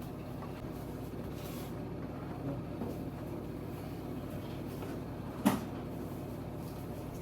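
Steady low background hum, with one short sharp knock about five and a half seconds in.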